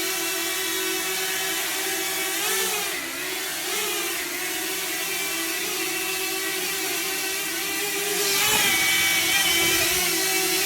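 DJI Flip drone's propeller motors whining steadily in flight, the pitch briefly dipping and rising a few times as it adjusts, and a little louder from about eight seconds in.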